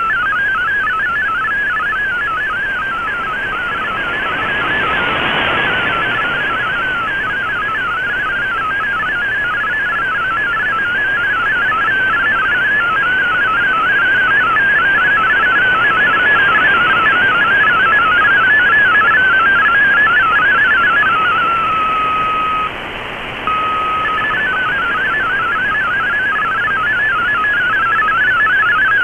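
MFSK32 digital text signal from a shortwave data broadcast, heard as receiver audio: a rapid warble of tones hopping within a narrow band, over shortwave hiss. About three-quarters of the way through, the warble breaks for a few seconds into a steady single tone, then resumes.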